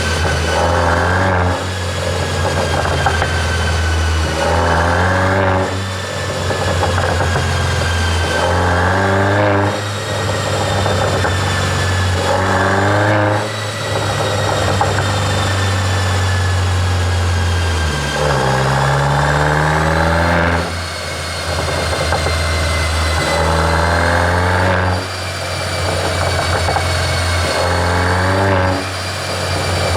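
Mercedes-Benz E350 4Matic engine with a pops-and-crackles exhaust tune, idling and blipped about seven times, roughly every four seconds. Each rev rises and falls back with crackling from the exhaust on the overrun.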